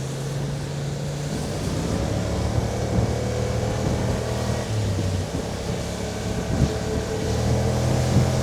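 Kymco AK550 maxiscooter's parallel-twin engine running at road speed under a steady rush of wind over the camera microphone, the engine note shifting a little about halfway through.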